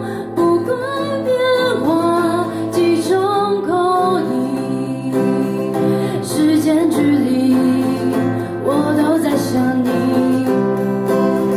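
A lead vocalist singing a song with guitar accompaniment; the sung line glides between held notes over the sustained guitar.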